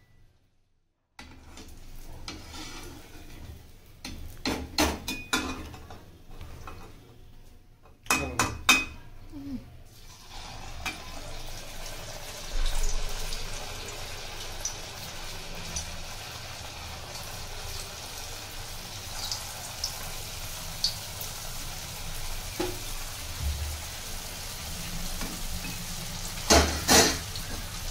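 Dudhauri, pieces of rice-and-milk dough, deep-frying in hot oil in a metal kadhai: a steady sizzle that builds from about ten seconds in as more pieces go into the oil. Metal slotted skimmer clinks against the pan, in a few clusters early on and two sharp knocks near the end.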